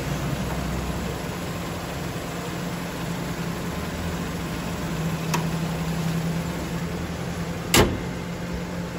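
Suzuki Cultus's bonnet slammed shut once near the end, a single sharp bang, over a steady mechanical hum. A light click comes about halfway through.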